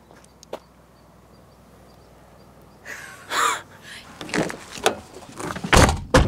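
A car door being opened and then shut with a heavy thump near the end, after a short rush of noise about three seconds in.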